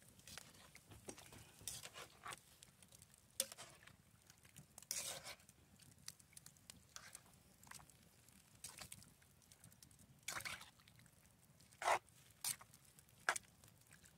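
Spoon stirring chopped vegetables and broth in a cast-iron Dutch oven of stew: soft squelching and scraping with scattered clicks of the spoon on the pot, and a few sharper knocks in the last few seconds.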